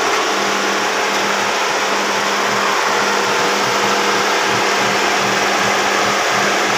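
Car engine idling steadily, freshly rebuilt with a replacement cylinder head, with the electric radiator cooling fans blowing: a steady rushing whir over the engine's low pulsing hum. The auxiliary radiator fan runs on a temporary wire tapped straight to the battery.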